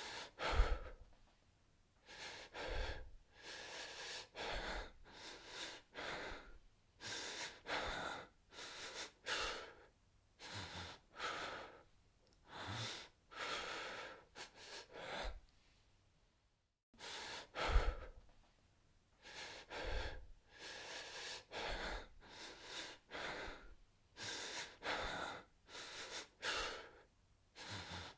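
A man breathing hard and fast in terror: quick, uneven breaths in and out, about one or two a second, with a short break about two-thirds of the way through before the breathing starts again.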